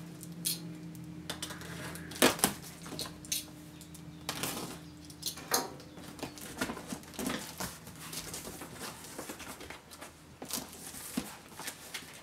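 A plastic-wrapped cardboard shipping box being cut and torn open by hand: irregular crackling and rustling of the plastic wrap and packing tape, with the cardboard flaps pulled back. The sharpest crackle comes about two seconds in, over a faint steady hum.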